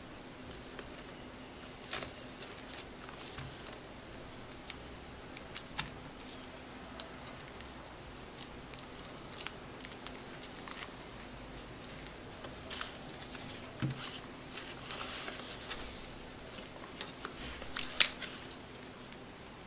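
Hands handling a smartphone box and its packaging: scattered small clicks, taps and crinkly rustling of cardboard and plastic wrap, with one sharper click near the end, over a faint steady hum.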